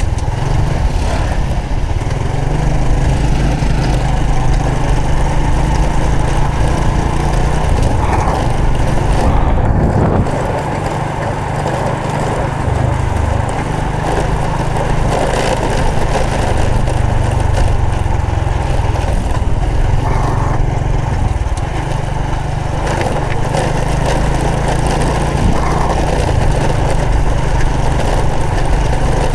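Honda Supra X 125 FI motorcycle's single-cylinder four-stroke engine running steadily while riding, with wind and road noise; the level dips briefly twice, about ten and twenty-one seconds in.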